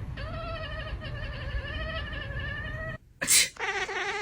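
A cat giving a long, wavering meow of nearly three seconds. A short, sharp cough comes about three seconds in, and the cat answers at once with a second long meow.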